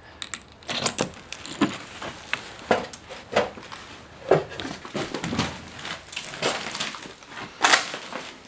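Footsteps crunching and rustling over scattered debris and paper, with a string of irregular crunches and crackles.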